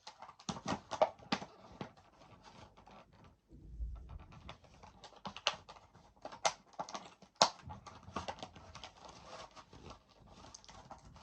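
Hands handling an action figure's plastic packaging and small plastic accessories: irregular clicks, taps and rustling, with a dull low bump about four seconds in.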